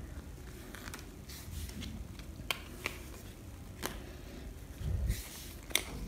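Piles of tarot cards being moved by hand on a cloth: several light clicks and taps, and a soft thump with a brief rustle about five seconds in.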